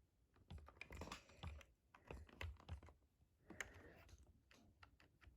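Near silence with faint, irregular clicks and taps.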